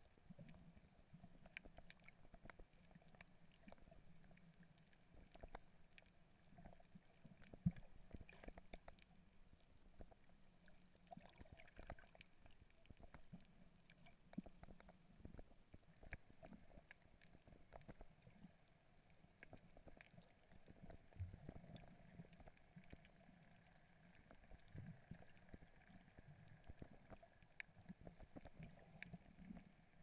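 Near-silent underwater ambience over a coral reef: faint scattered clicks and crackles over a low, steady hum.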